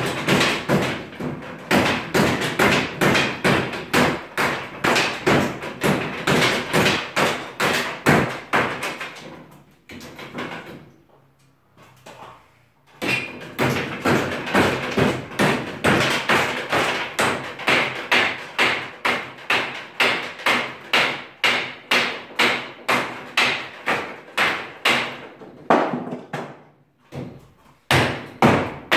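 Long metal bar jabbing up into a wooden ceiling to knock it down, striking the boards and battens in quick repeated knocks, about three a second. The knocking comes in two long runs with a pause of a few seconds in the middle.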